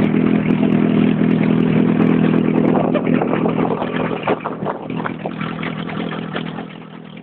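A paddle-wheel pontoon boat's engine running steadily, fading over the second half, with many sharp cracks and crunches of ice breaking against the boat from about three seconds in.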